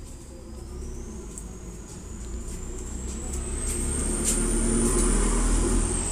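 A vehicle engine rumbles and grows steadily louder, with a thin high-pitched whine that slowly rises. A few faint clicks sound over it.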